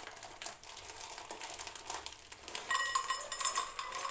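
Roasted chickpeas and jaggery poured from a plastic bag into a steel bowl: a dry rattle of many small clicks with crinkling plastic. About two-thirds of the way through it gets louder and the steel bowl rings as the grains strike it.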